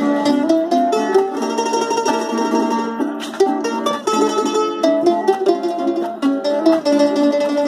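A mandolin picking a quick melody over a strummed cuatro, the two playing a waltz together.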